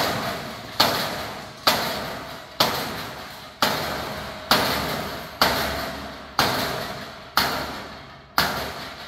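Hammer blows with an orange-headed mallet on hot aluminum flat bar, wrapping it around a gate-hinge pipe. About ten even strikes, roughly one a second, each followed by a short ringing that fades before the next.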